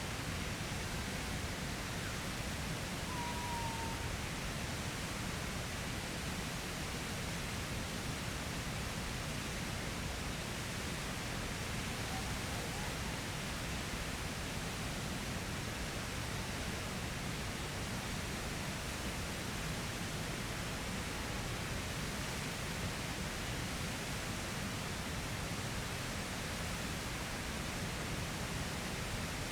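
Waterfall rushing: a steady, even roar of falling water with no change in level.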